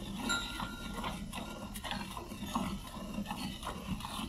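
A cow being milked by hand: milk squirting from the teats in short rhythmic spurts, about two to three a second.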